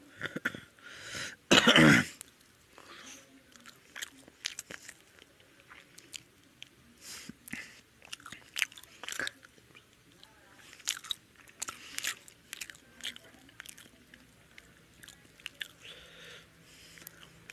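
A person chewing and eating rice and fish curry by hand, with many small wet clicks and smacks of mouth and fingers. A single loud burst of sound about two seconds in is the loudest moment.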